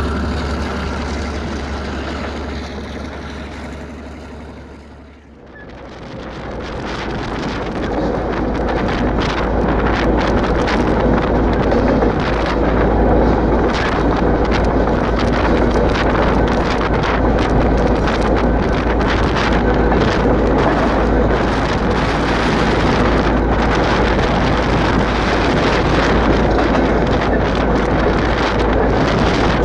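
EMD GR-12 diesel locomotive running with a steady engine tone that fades out over the first five seconds. After a cut, loud wind buffeting on the microphone over the locomotive's rumble and clatter as it rides fast over rough track.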